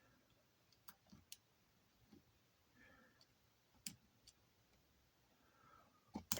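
A lock pick working the pins inside a clear practice padlock: a handful of faint, scattered metal clicks over near silence, the sharpest near the end.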